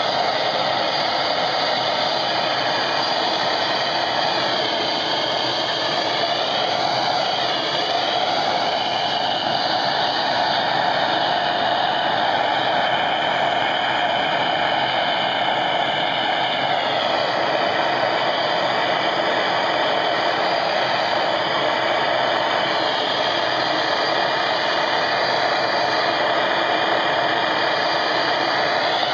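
Brass petrol blowlamp burning with a steady hiss, its flame aimed at a brake drum's hub to heat the seized drum free.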